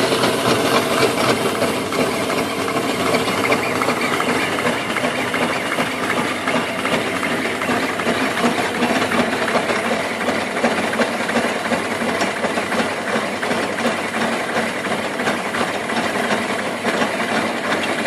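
Home-built steam donkey's twin horizontal steam engines running on boiler steam, a steady fast chuffing with a hiss of steam. The throttle is open to draw steam off a boiler close to its 125 psi pop-off setting.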